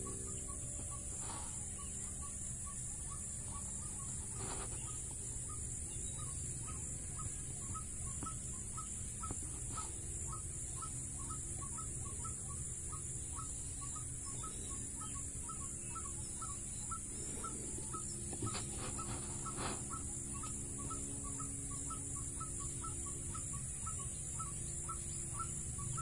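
Open-air field ambience: a steady high insect drone, with a short note repeated evenly about twice a second throughout and a few faint, longer low calls in the middle.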